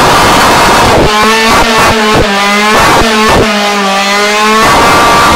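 Stage6-tuned two-stroke scooter engine revving hard during a burnout, its note repeatedly breaking off and coming back as the throttle is worked, then holding one steady high note from about four and a half seconds in while the rear tyre spins.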